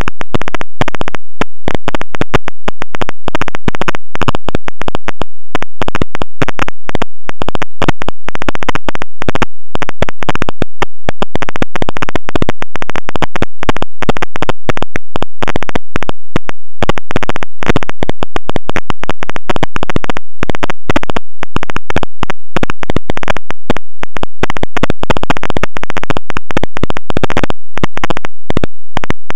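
Loud, harsh crackling static with rapid stuttering dropouts, held at full level: electrical interference noise on the recording's audio, with no voices or knocks standing out.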